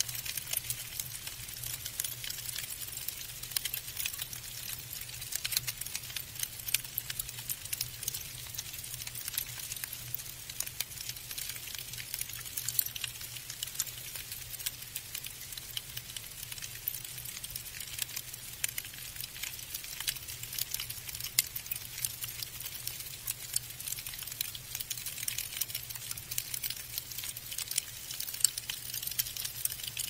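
Falling snow: a dense, even patter of tiny ticks as the flakes land, over a faint steady low hum.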